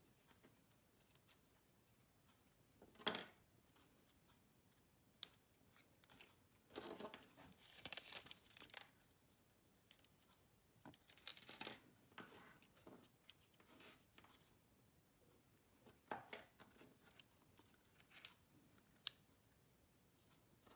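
Faint papercraft handling: a glue dot peeled off its roll with a short tearing sound, a small paper bow being folded and pressed, and light clicks from metal snips. Mostly quiet, with a few sharp clicks and several scratchy rustles, the longest about a third of the way in.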